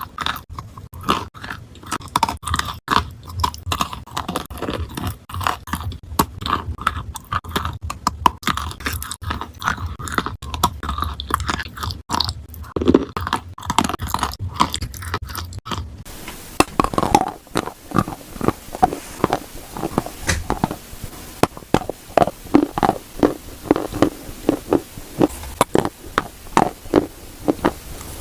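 Crunching bites and chewing of clay with paste, a fast run of crisp cracks that changes suddenly about sixteen seconds in to a softer, duller chewing.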